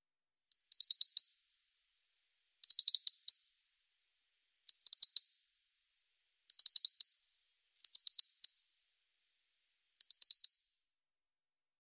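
European robin giving its ticking alarm call: six quick bursts of sharp, rapid ticks, one every couple of seconds.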